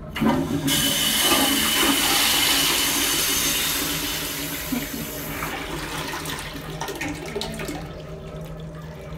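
Japanese squat toilet flushed with its lever-operated flush valve: a sudden rush of water through the pan that runs strongly for about five seconds, then tails off into a quieter trickle.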